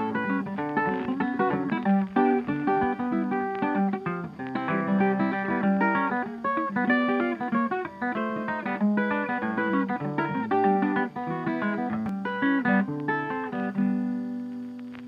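Outro music: a quick, busy guitar tune of plucked notes, fading out near the end.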